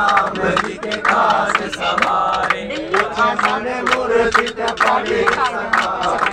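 A group of men singing a Hindu devotional bhajan together, with hand claps keeping the beat.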